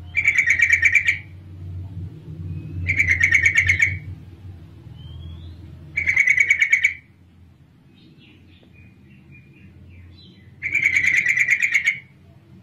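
Female yellow-vented bulbul (trucukan) calling: four bursts of fast chattering notes, each about a second long and a few seconds apart, with faint softer chirps in between. It is the female's call to males, used as a lure to get male bulbuls to answer. A faint low hum runs underneath.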